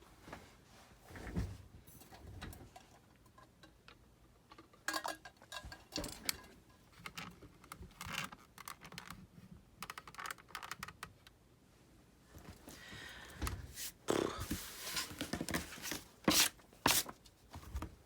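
Craft materials being handled on a table: scattered taps, clicks and scrapes with paper rustling, busier and louder in the second half.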